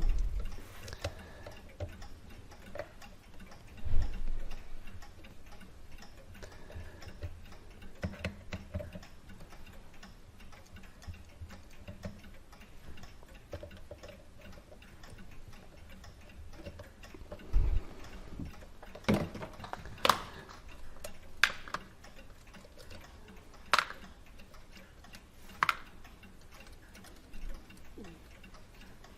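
Scattered small metallic clicks and taps, at irregular spacing and more frequent in the second half, from hand tools and brass parts of a Hermle clock movement being handled while its mainspring barrels are removed. There is a dull knock about four seconds in and another just before the middle.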